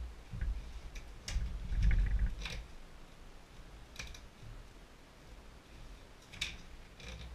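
A plywood panel being shifted and pressed into place by hand: dull thuds, loudest between about one and two and a half seconds in, and a few sharp clicks and knocks scattered through the rest.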